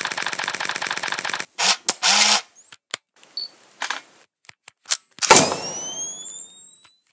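Edited sound effects: a fast, even run of mechanical clicks like a camera shutter firing in burst mode, cut off about a second and a half in. Scattered short clicks and noises follow, then a loud hit about five seconds in with a rising whistling tone that fades away.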